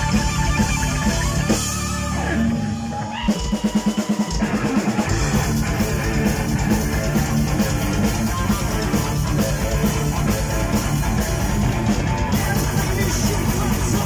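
Heavy metal band playing live: distorted electric guitar through a Marshall stack with bass and drum kit in an instrumental passage. About two seconds in the band drops out briefly, then a fast chugging riff leads back into the full band.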